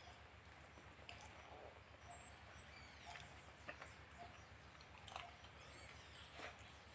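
Near silence with faint background ambience: a few short, high bird chirps, scattered light clicks and a steady low hum.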